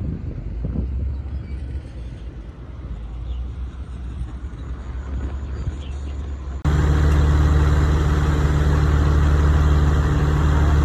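A low rumble with wind noise, then an abrupt switch about two-thirds of the way in to a loud, steady engine hum at a constant low pitch.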